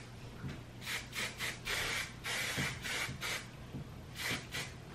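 Hairbrush being pulled through long hair in a quick series of short brushing swishes.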